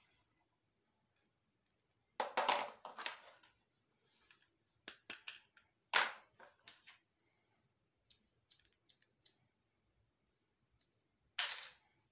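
Small plastic toy pieces and packaging being handled: a crinkling rustle about two seconds in, a run of sharp clicks and taps through the middle, and another crinkle near the end. A faint steady high-pitched whine sits underneath.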